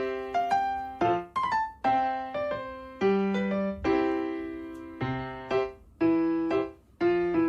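Background music: a gentle piano melody, notes struck and left to fade.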